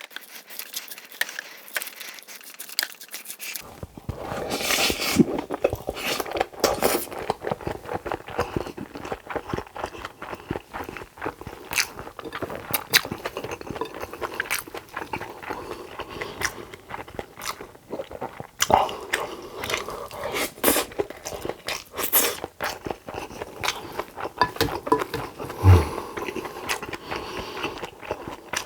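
A person eating a Korean meal close to the microphone: steady chewing, biting and crunching with many sharp clicks.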